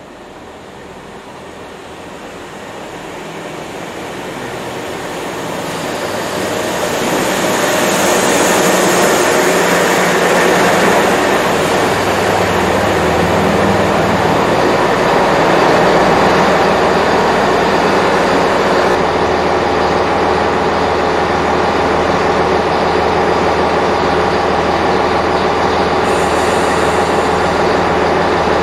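Diesel multiple-unit train pulling into the platform, growing louder over the first eight seconds, with a brief high squeal as it slows to a stop. Its diesel engines then idle steadily while it stands at the platform.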